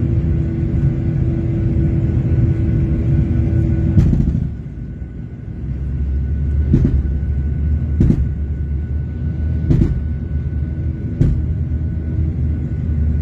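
Boeing 737 jet engine heard from inside the cabin after a bird strike. A steady drone with a tone stops abruptly about four seconds in and gives way to a lower rumble. Four loud bangs follow, roughly one every second and a half, coming from the bird-damaged, failing engine.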